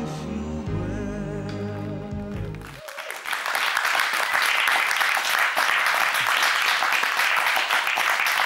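Music with a singing voice stops abruptly about three seconds in, and a studio audience breaks into steady applause, which is the loudest sound.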